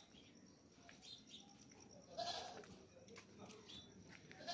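A goat bleating: one short bleat about two seconds in and another right at the end.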